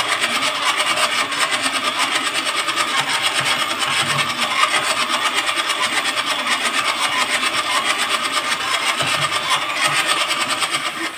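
Electric hand mixer running steadily at speed, its wire beaters whirring through thick cake batter in a plastic bowl.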